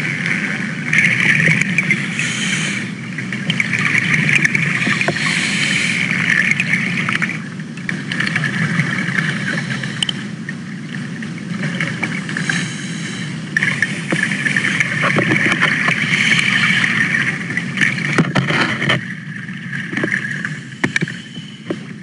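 A motor running steadily, swelling and fading in level, then dropping away sharply about 19 seconds in.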